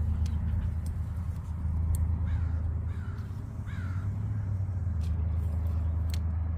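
A crow cawing three times, about a second apart, over a steady low rumble, with a few sharp clicks near the end.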